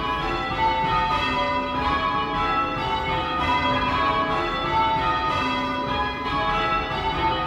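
Six cast-iron church bells rung in call changes. The bells strike one after another at an even pace, repeating the same order between calls, and each tone rings on over the next.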